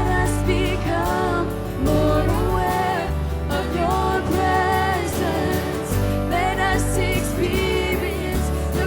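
Worship song performed live: a singer's melody over band accompaniment with long held bass notes.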